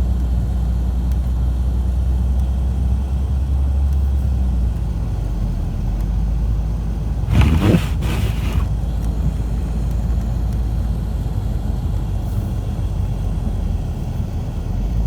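A car driving over fresh snow: a steady low engine drone, with a brief louder rush of noise about halfway through.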